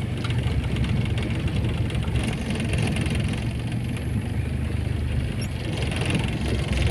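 Car cabin noise while driving slowly over a muddy, potholed dirt road: a steady low rumble of engine and tyres on the rough surface.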